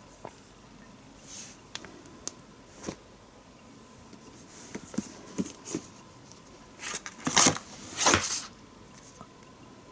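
Hands handling boxes and packaging during an unboxing: scattered light clicks and taps, then a couple of louder scraping rustles about seven to eight seconds in.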